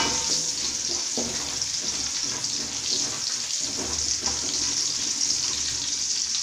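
Hot oil sizzling in a steel kadai as crushed garlic, cumin seeds and urad dal fry, with a steady hiss. A wooden spatula stirs and scrapes through it with a few light strokes.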